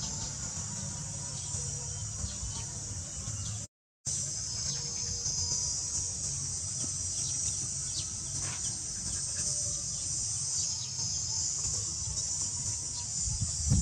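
Steady high-pitched chorus of insects with a low rumble underneath. The sound drops out briefly about four seconds in.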